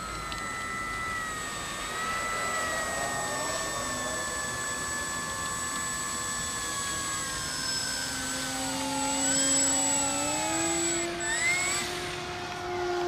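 Radio-controlled floatplane's motor and propeller running at low throttle as it taxis on the water, a steady whine that rises in pitch about ten seconds in as the throttle is opened a little.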